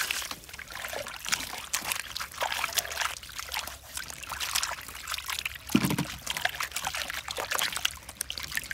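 Water splashing and dripping in a stainless-steel basin as hands scrub and turn halved green papaya and cucumbers in it, in irregular short splashes. A stream of water pouring into the basin cuts off right at the start, and there is one louder dull bump about six seconds in.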